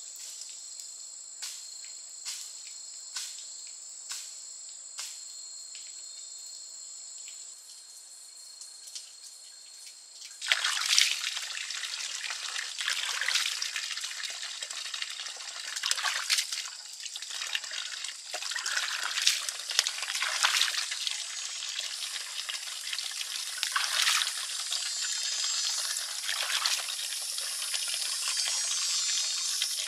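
Insects buzzing in two steady high tones, with a soft tick about once a second. About ten seconds in, this gives way to water pouring from a bamboo pipe into a plastic basin, splashing unevenly as hands wash in the stream.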